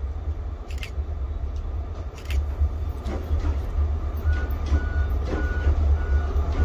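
Train rumbling on the tracks, the deep rumble growing louder, with two sharp clicks in the first half. From about four seconds in, a short high tone repeats a little under twice a second.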